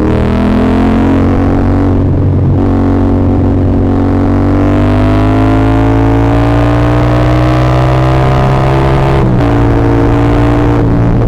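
CFMoto 450SR-S parallel-twin engine accelerating under load, its pitch climbing steadily through the revs and dropping at upshifts about two and a half seconds in and again about nine seconds in, with another brief break near the end.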